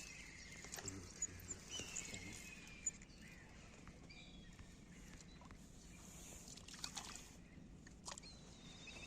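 Faint outdoor ambience: a bird gives short, falling whistled calls a few times, with a handful of sharp clicks later on.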